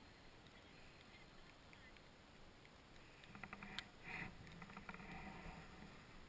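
Faint hiss of a snowboard sliding over snow, turning rougher and a little louder about three seconds in, with a few light clicks.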